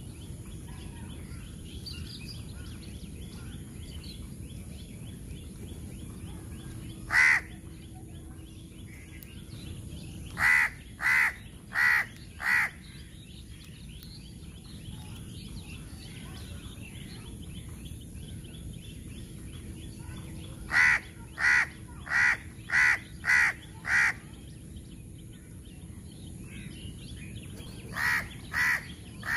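Crow cawing in short runs of harsh calls: a single caw, then four in quick succession, then a run of six, then three more near the end. A steady background hiss runs beneath them.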